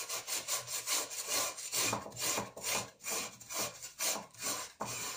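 Hand scrubbing the greasy outside bottom of a metal pan with toothpaste, quick back-and-forth rubbing strokes at about three a second, scouring off baked-on grease.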